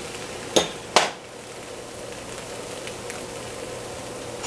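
Ramen noodles frying in a skillet with a steady sizzle, broken about half a second in by two sharp knocks less than half a second apart, the second the louder.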